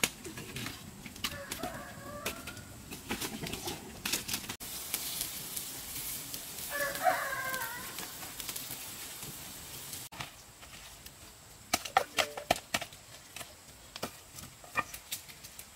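Domestic fowl calling twice, with wings flapping and scattered sharp knocks and clicks.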